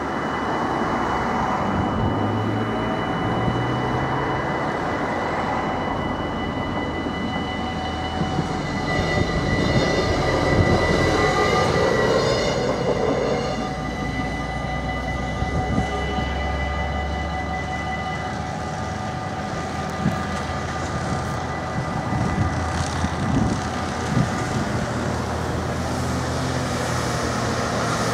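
Dutch level-crossing warning bells ringing steadily while a regional train passes. The train noise swells to a peak about ten seconds in and dies away by about fourteen seconds. The bells stop a few seconds later, and road vehicles move off near the end.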